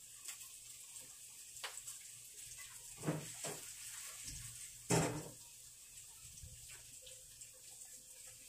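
Kitchenware being handled: two knocks about three seconds in and a louder clatter about five seconds in, over a faint steady hiss.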